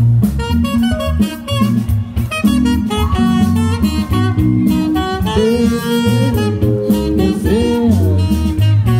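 Band music: a saxophone playing a melody that bends and glides over bass and a drum-kit beat.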